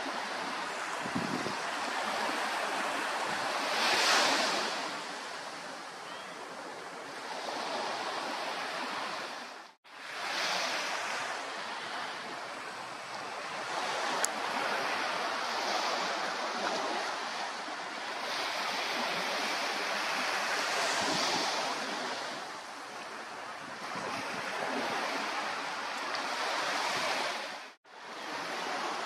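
Small waves washing on the shore: a steady hiss of water that swells and eases every few seconds. It cuts out abruptly twice.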